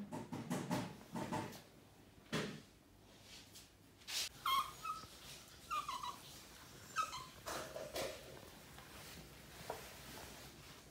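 West Highland white terrier whining in a few short, high whimpers in the middle, eager to go out on a walk, with a few knocks and rustles around it.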